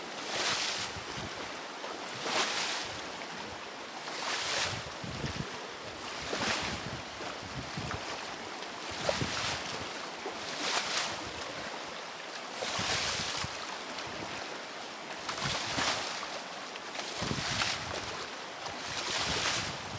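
Rough, choppy river water, its waves surging and splashing against the bank about every two seconds, with wind rumbling on the microphone.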